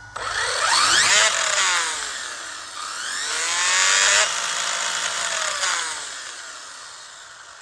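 Traxxas Velineon brushless motor and drivetrain on an RC rally car, throttled up twice to full speed. Each time a high whine rises steeply to a peak, then falls slowly as the wheels spin down, in a test of whether the tyres balloon at speed.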